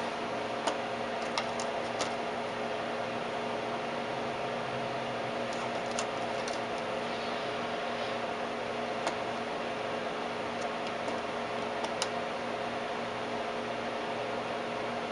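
Steady whir and hum of a vacuum-tube Tektronix 549 oscilloscope's cooling fan and power supply, with a handful of short, light clicks scattered through it.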